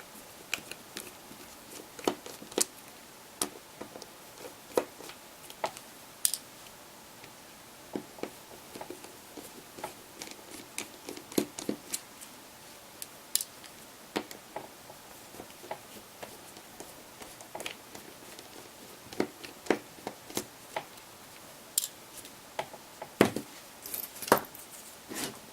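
Small, sharp clicks and taps at irregular intervals from a T6 Torx screwdriver working the rear housing screws out of a Huawei Ascend 2 M865 phone, with the driver and screws knocking on the plastic housing. A louder knock comes near the end.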